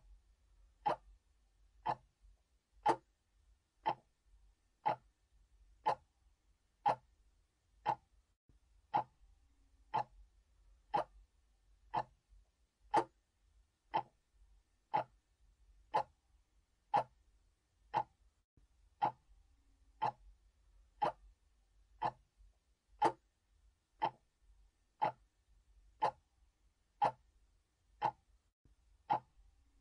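Clock ticking steadily, one sharp tick a second.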